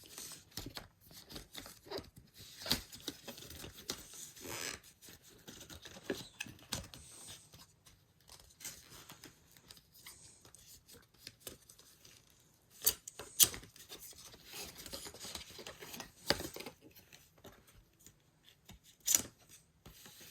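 Quiet handling of packaging, paper or plastic wrapping tearing and rustling as an Apple power adapter is unwrapped, with scattered sharp clicks and taps; the loudest come about two-thirds of the way in and again near the end.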